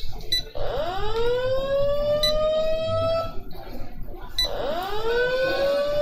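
A siren-like alarm wailing upward in pitch twice, each rise lasting about three seconds and then cutting off abruptly, with a short tick near the start of each wail.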